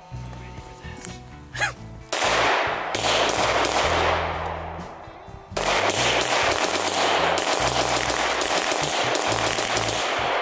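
Sig Sauer P320 9 mm pistol fired rapidly in two long strings of shots, the first starting about two seconds in and the second after a short pause, running down an extended magazine. It is loaded with a mix of 124- and 115-grain factory rounds and reloads.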